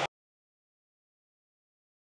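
Complete silence: the sound track cuts to nothing right at the start, just after the last syllable of a man's voice.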